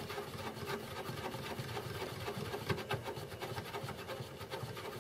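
Plastic CD tray loading mechanism turned slowly by hand at its drive pulley: faint rubbing and scraping of plastic parts with a few light clicks. Its drive belt is loose and worn.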